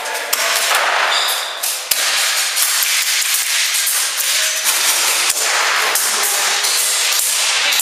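Airsoft guns firing, with sharp cracks and pops at irregular intervals over a steady, loud noisy background.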